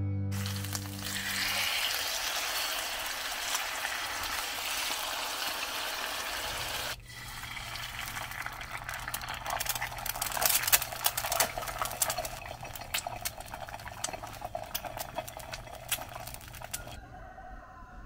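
Food frying on a round black griddle plate: a steady sizzle, then after a sudden change about seven seconds in, an egg sizzling with many sharp crackling pops of spattering fat, dying away near the end. Soft guitar music fades out in the first second or two.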